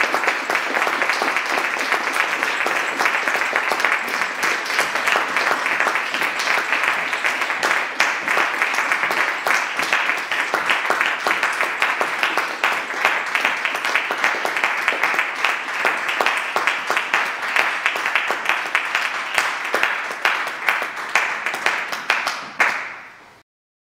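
Audience applauding: dense, steady clapping that thins a little toward the end and then fades out quickly just before the end.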